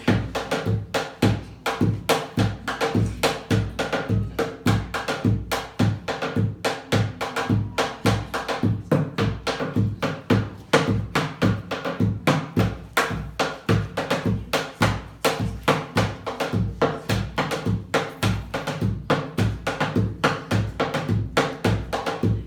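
Drum-led percussion music: a fast, steady pattern of struck drums that keeps a regular low beat and never pauses.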